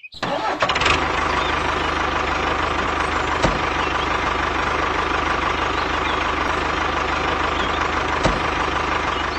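A motor that starts abruptly and then runs at a steady, even pitch. Two sharp clicks cut through it, about three and a half seconds in and again near the end.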